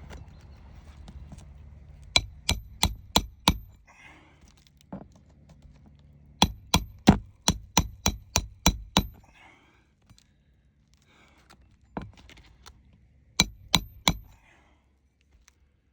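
Hammer blows on a shingle roof, sharp metallic cracks with a slight ring, in quick runs of about four a second: five, then a single blow, then about nine, then another single, then three near the end.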